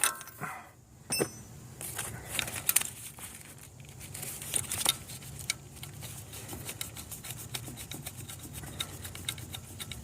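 A 19 mm wrench working the old coolant temperature sensor loose: scattered metal clinks and scrapes, then a fast run of light clicks through the second half as the sensor is unscrewed.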